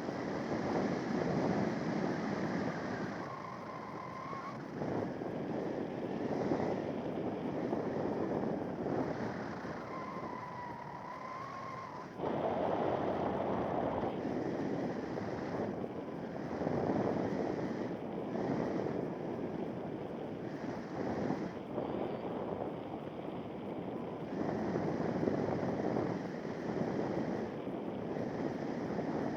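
Wind rushing over and buffeting the microphone during a free-flight paraglider flight, surging and easing every few seconds. A faint wavering whistle comes through twice.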